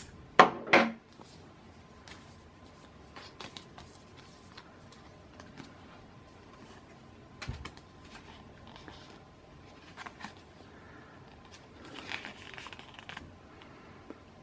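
Scissors snipping twice, cutting the swing tag off a backpack, then quiet rustling and soft clicks as the folded card tag is handled and unfolded.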